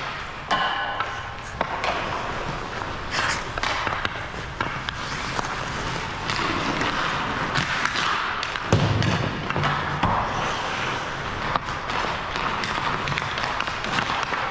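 Hockey pucks and sticks on an ice rink: an irregular run of knocks and taps over the hiss of the rink, with a heavier thud about nine seconds in, like a puck hitting the boards.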